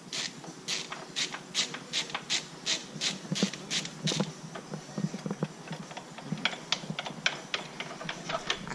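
Ratchet wrench clicking in quick, even strokes, about three a second, loosening the fittings on a truck battery. Then the clicks turn irregular and come closer together.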